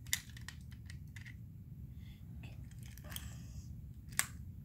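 Small toy trains being handled on a foam play mat: a few light clicks and taps as they are picked up and set down, the sharpest near the start and near the end, over a faint low room hum.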